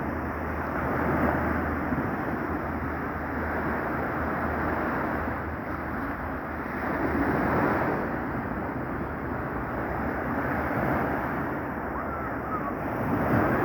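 Rough sea: waves breaking and washing in, in a continuous rush that swells every few seconds, with wind buffeting the microphone.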